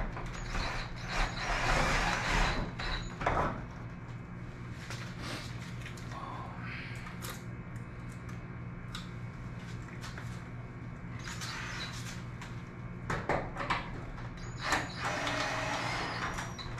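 Cordless drill driving screws through PVC couplers into a steel garage-door strut, in short bursts about a second in and again near the end, with clicks and clatter of plastic fittings being handled in between. A steady low hum runs underneath.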